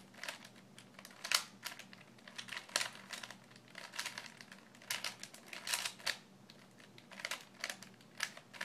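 Rubik's cube faces being turned in quick succession: a run of irregular plastic clicks and clacks as a corner-swap algorithm is carried out.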